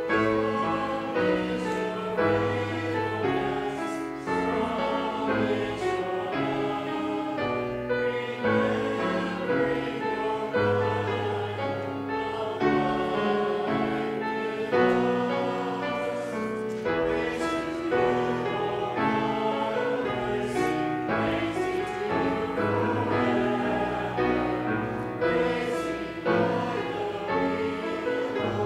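A congregation singing a hymn, accompanied on a keyboard instrument, in slow held chords.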